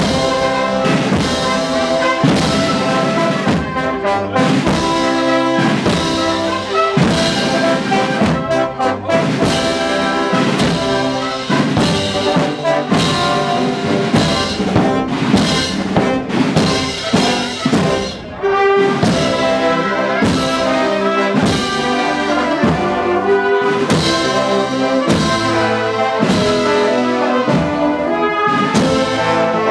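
Municipal wind band playing a Spanish processional march, led by trumpets and trombones over a steady drum beat.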